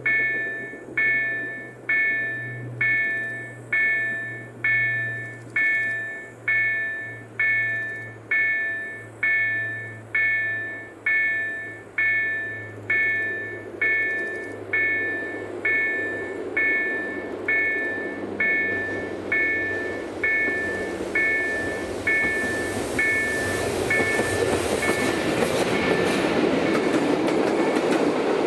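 Level-crossing warning bell, an EDE-1 electronic bell driven by an EDG-4 tone generator, striking about once a second, each strike ringing out and dying away. About two-thirds of the way through a train's rumble builds up, and near the end the passing train is loud enough to drown out the bell.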